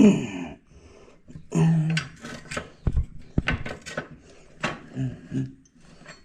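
Scattered metal clanks and knocks of motorcycle rear-wheel parts (axle, spacers, brake bracket) being handled as the wheel comes out, with a few short grunts.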